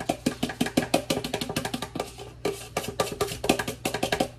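A spoon knocking and scraping against the inside of a mixing bowl in a fast run of short, ringing clinks as sauce is scraped out of it. The clinks stop near the end.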